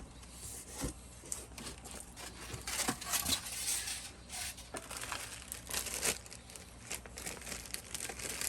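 Product packaging being opened and handled: irregular crinkling and rustling of wrapping, with a few small sharp clicks and knocks.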